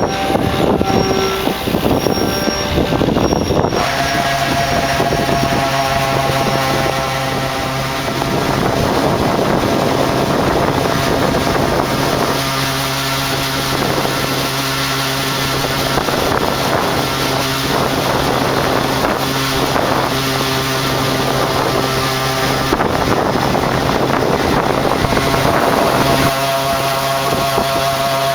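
Combine harvester running steadily while harvesting wheat, with a loud engine and machinery hum. The tone changes about four seconds in, when a steady low hum comes in.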